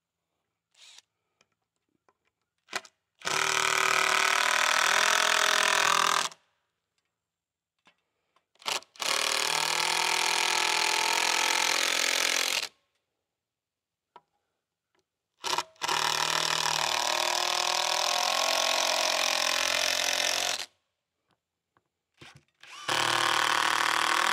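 Handheld cordless drill driving screws into 2x6 wooden braces, four runs of three to five seconds each with pauses between, the motor's pitch wavering under load. A few short knocks fall in the pauses.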